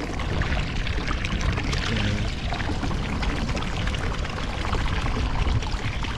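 Water sloshing and splashing in a kayak's live-bait well as a hand moves live bait fish about in it, over a steady wash of sea water along the hull.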